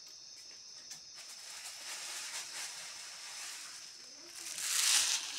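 Plastic bags rustling and crinkling as they are handled, swelling into a louder burst of crinkling near the end, with a faint steady high whine underneath.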